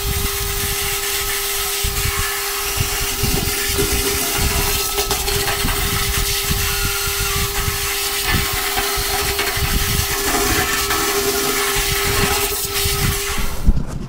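Vax wet-and-dry vacuum cleaner running steadily with a constant motor whine, its hose gurgling as it sucks the remaining diesel and muck out of a fuel tank. It cuts off suddenly near the end.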